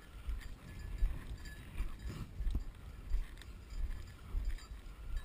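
Footsteps of a person walking on a mowed grass path, thudding about twice a second, with a faint rustle of dry grass.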